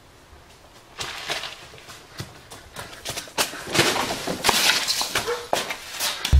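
Footsteps on a wooden floor and loose wood debris knocking and clattering as it is rummaged through. The knocks begin about a second in and come faster and louder toward the end.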